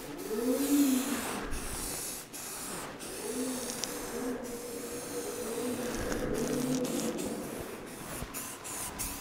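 Aerosol spray can of sandable primer hissing as a guide coat is sprayed on, in repeated passes broken by short stops. A low wavering tone sounds now and then underneath.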